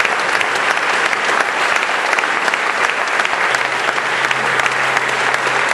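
Audience applauding steadily, many hands clapping at once as the award is handed over.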